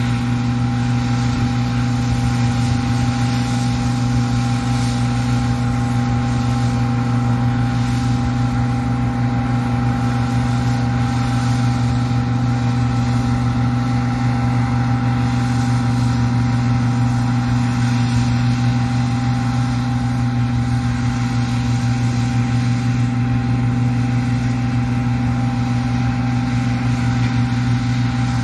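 Combine harvester running at a steady engine speed, its diesel engine and threshing machinery holding one even hum with no change in pitch.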